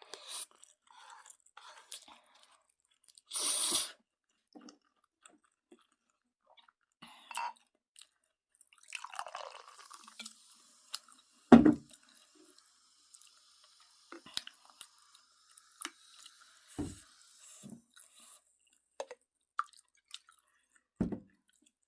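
Close-up eating sounds: a person chewing mouthfuls of Jjapaghetti noodles, with scattered soft mouth clicks. There are a few sharp knocks, the loudest about halfway through.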